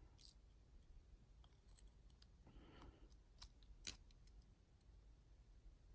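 Faint, scattered metallic clicks and ticks of tweezers handling the tiny pins and springs of a dimple lock, with one sharper click about four seconds in.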